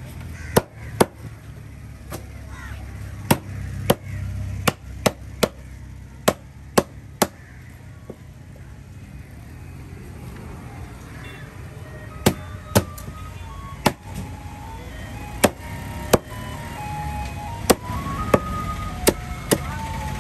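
Fish being chopped with a heavy knife on a cutting block: about twenty irregular sharp chops, with a pause of several seconds around the middle. A simple tune plays faintly in the second half over a low steady hum.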